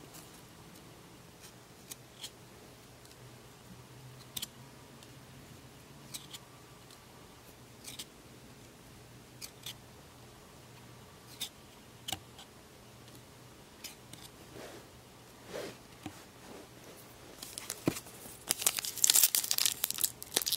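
Trading cards handled and shuffled one by one, with faint short clicks every second or two. Near the end, a shiny trading-card pack wrapper is crinkled and torn open, the loudest sound in the stretch.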